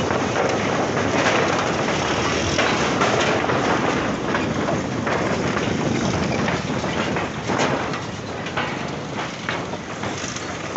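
Loose wooden deck planks of a steel-truss plank bridge rattling and knocking as they are walked over, a rail-like clatter over a steady rushing noise, the knocks thinning out and quieter near the end.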